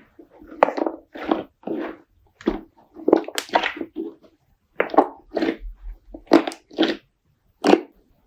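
Slime being pressed and squeezed by hand: about a dozen short squishes at an irregular pace.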